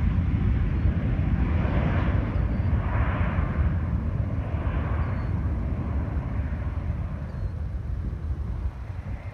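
Gulfstream IV's two rear-mounted Rolls-Royce Tay turbofans at takeoff power as the jet climbs away: a deep rumble with a wavering higher hiss, fading slowly as it recedes.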